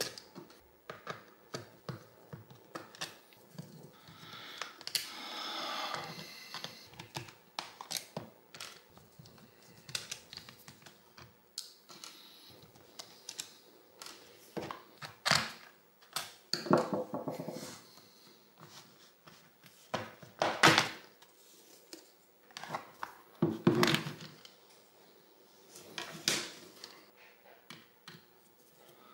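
A small Torx screwdriver turns out the case screws of a 70mai Midrive PS06 jump starter, with light clicks and ticks of the driver and of small screws set down on a wooden table. Later come several louder knocks and clatters as the plastic case is handled and its back cover is taken off.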